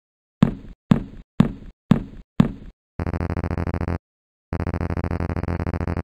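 Five sharp knocks about half a second apart, then a harsh, steady buzzing that sounds twice, for about a second and then for a second and a half, with a short break between.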